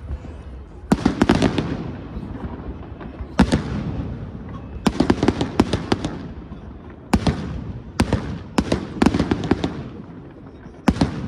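Fireworks from a castillo fireworks tower going off: about a dozen sharp bangs, some alone and some in quick clusters of three or four, each trailed by brief crackling.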